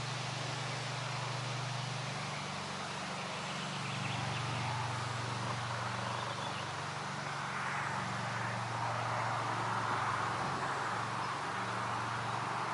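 Wind rising and falling over a pond, swelling and growing louder in the second half, with a steady low drone underneath.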